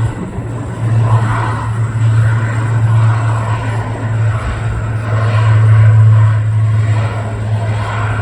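Beechcraft King Air 360's twin Pratt & Whitney PT6A turboprops running with a steady low propeller drone, swelling loudest about six seconds in.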